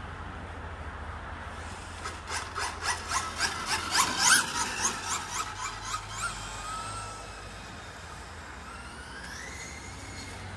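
Radio-controlled racing car going past on the track: a rapid run of short high chirps, about three a second, loudest about four seconds in. Near the end a thin whine rises in pitch.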